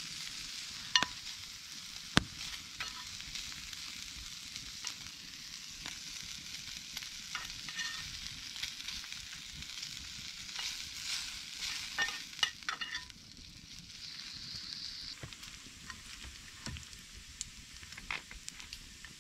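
Food sizzling in a frying pan over a campfire, a steady hiss with scattered sharp ticks and crackles. The sizzle drops away about two-thirds of the way through.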